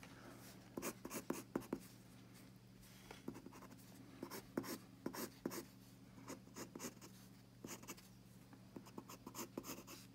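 An art pencil scratching across a paper sketch pad in short, irregular strokes as a drawing is shaded in, faint, over a steady low hum.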